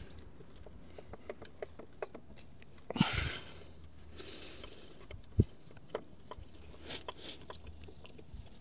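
Faint, scattered metal clicks and ticks of a screwdriver turning a float-bowl screw home on a Honda VFR400 carburettor bank, with louder knocks about three and five and a half seconds in.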